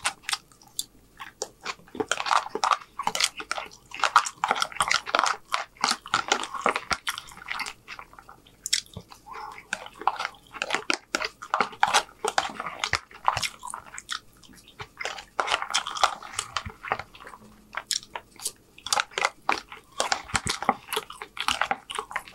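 Close-miked eating: a utensil scrapes and clicks against a plastic takeout container while the last of the rice is scooped out, with chewing and mouth sounds in between. The scrapes, clicks and chews come irregularly, in quick clusters.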